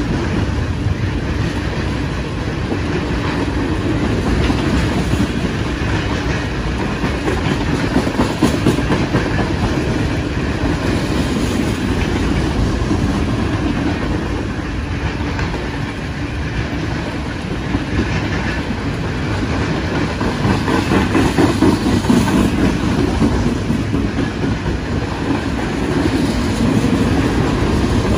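Freight train tank cars rolling past, their steel wheels rumbling and clicking over the rail joints in an unbroken stream, swelling a little now and then as the cars go by.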